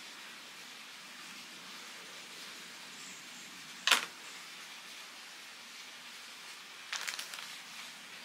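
Knife and mango pieces knocking against a plate while a mango is cut by hand: one sharp click about four seconds in, then a short run of smaller clicks near the end, over a faint steady hiss.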